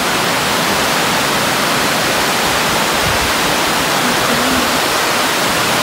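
Steady rushing of Turner Falls and its cascades, running high and fast after rain: an even, unbroken wash of water noise.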